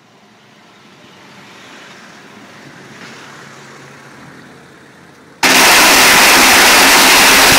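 Faint background noise, then about five seconds in a string of firecrackers goes off all at once in a very loud, dense, unbroken crackle.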